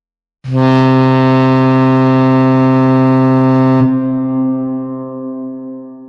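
Ship's horn sounding one long, low blast of about three and a half seconds, then dying away over the next few seconds.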